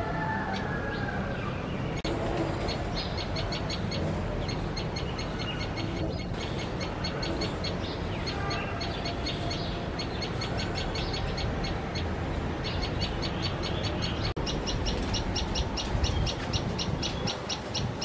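Common tailorbird calling in long, fast series of sharp, high chips, about six a second, with short breaks between series. These are the noisy calls it gives at the nest while feeding its chicks.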